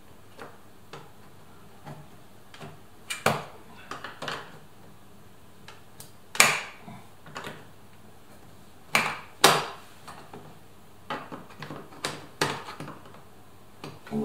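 Irregular clicks and knocks of hands working at the plastic interior trim of a Toyota RAV4's driver's door. A few of them are sharper and louder than the rest.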